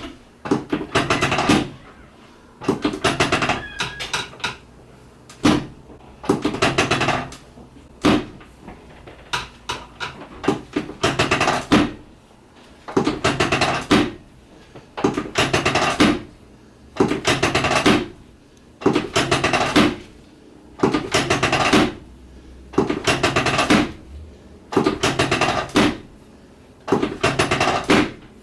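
Rapid percussive tapping on the body during a chiropractic treatment, in bursts of about a second, repeating roughly every one and a half seconds.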